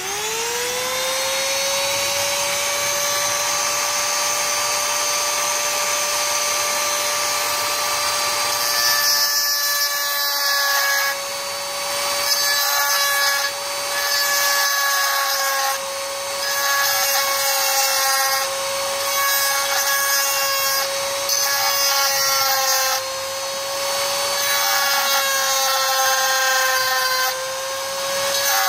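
Handheld rotary tool with a pink grinding stone switched on, its motor whine rising quickly to a steady high pitch. From about a third of the way in, grinding comes and goes in short stretches as the stone is pressed against the metal flange of the welder's over-temperature switch to grind it back.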